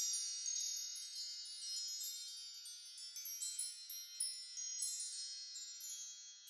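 Many high, bell-like chime tones ringing and overlapping, new ones striking in every fraction of a second.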